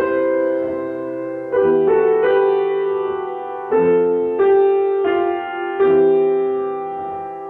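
Piano played slowly: held chords, a new chord struck every second or two.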